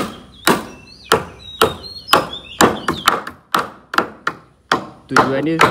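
Hammer blows on timber, about two a second, each a sharp crack that dies away quickly, as nails or fixings are driven while timber beam covers are fitted.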